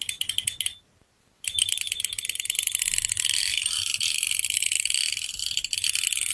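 Metal fidget spinner's ratchet arm: spring-loaded 3 mm beads clicking rapidly against the spinning rotor, with a stainless steel spring and a gold-plated spring in adjacent holes for alternating high and low clicks. The clicking stops for a moment about a second in, then comes back as a fast, dense stream of high-pitched clicks.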